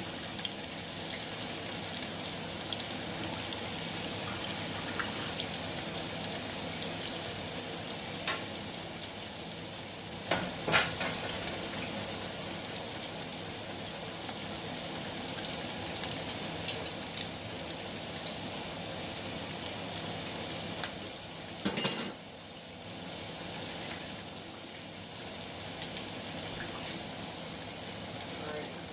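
Sliced onions sizzling steadily in oil in a stainless skillet on an electric coil burner, with a few sharp clicks now and then.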